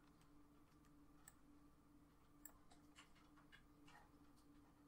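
Near silence: room tone with a faint steady hum and a few faint computer mouse clicks.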